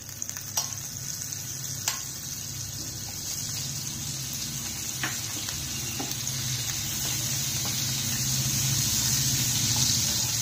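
Butter sizzling as it melts in hot oil in a pan, a steady hiss that grows slowly louder, with a few light clicks in the first few seconds.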